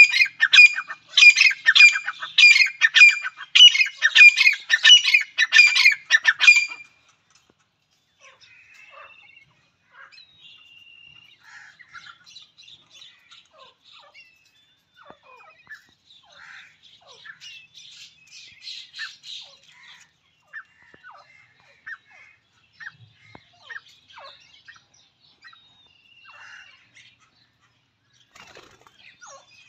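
Grey francolin calling: a loud, harsh call repeated about two to three times a second for the first seven seconds. After that come quieter scattered chirps and short calls.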